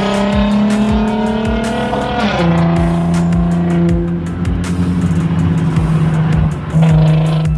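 A car engine pulling hard through the gears, its pitch climbing slightly and then dropping sharply at an upshift about two and a half seconds in. It is mixed with music that has a steady beat of about two thumps a second and deep held bass notes.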